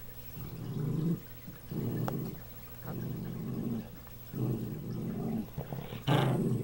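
Small dog growling in a run of low, rough rumbles about a second long with short breaths between, five in all, the last louder and harsher; a warning growl at a puppy close in front of her.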